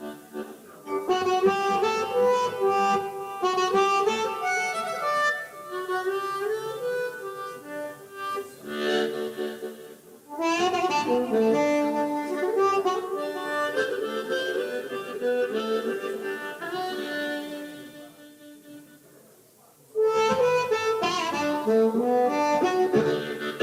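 Live blues harmonica playing in phrases with short breaks. It fades almost to nothing about eighteen seconds in, then comes back in strongly about two seconds later.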